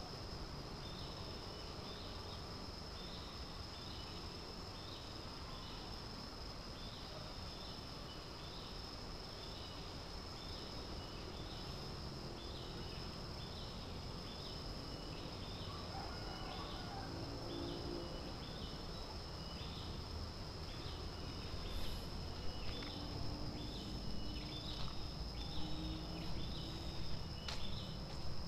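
Insects droning in a steady high whine, with a short chirp repeating about once a second. Irregular thumps come in over the last few seconds.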